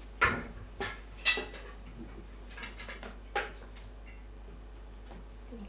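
Plates, glasses and cutlery clinking and knocking on a dining table as food is served: a few sharp clinks in the first three and a half seconds, the loudest near the start and about a second in.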